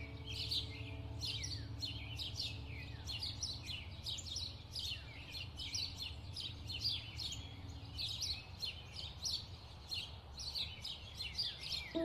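Many small birds chirping continuously, with quick, high, downward-sweeping chirps several times a second over a low steady rumble.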